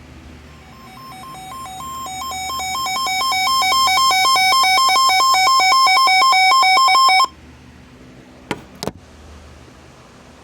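Emergency Alert System attention tone: two high pitches alternating rapidly, swelling louder over several seconds and then cutting off abruptly about seven seconds in. About a second later come two sharp clicks, over a faint steady hiss.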